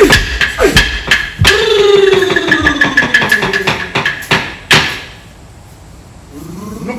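Dance music for an Aboriginal mosquito dance: sticks knocked together in an even beat, about two to three a second, over a held droning tone, stopping about five seconds in.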